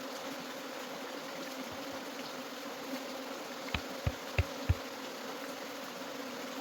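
A mass of bees buzzing with a steady hum. About halfway through there are four quick low thumps, like knocks or taps.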